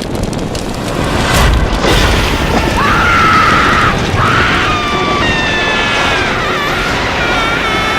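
Dramatic film soundtrack: loud, dense music with heavy rumbling booms. From about three seconds in, high wavering and gliding tones sound over it.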